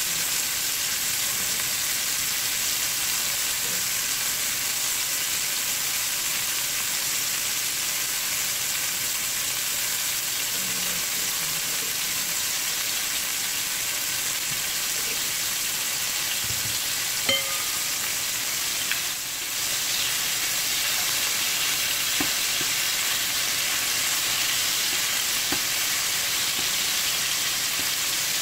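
Chicken pieces frying in olive oil and butter in a stainless steel pan, a steady sizzle as they brown. A couple of light clicks come about two-thirds of the way through.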